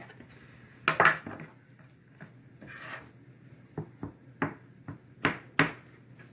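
Kitchen dishes and utensils being handled on a counter: a clatter of knocks about a second in, a brief scrape near the middle, then a series of lighter knocks, the two loudest near the end.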